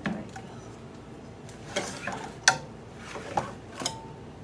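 Hard plastic and metal parts of an embroidery machine's spool holder tray knocking and clattering as the tray is handled and turned: about five sharp knocks, the loudest about two and a half seconds in, one with a brief ring near the end.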